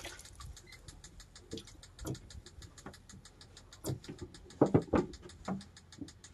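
A few sharp knocks on a small wooden fishing boat as a handline is worked over the side. The loudest is a quick pair about three-quarters of the way through, over a faint, steady, rapid ticking.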